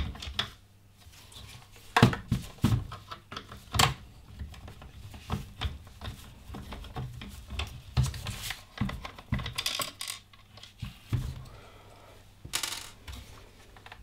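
Irregular small clicks and light clatter of a screwdriver backing tiny screws out of a Dyson V11's plastic motor housing, with the small metal screws set down on the counter and the plastic body handled. The sharpest clicks come about two and four seconds in.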